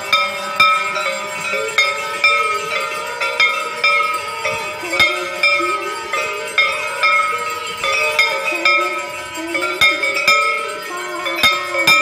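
Temple bells rung during an aarti, struck over and over roughly twice a second so their ringing tones overlap, with a slow sung devotional melody beneath.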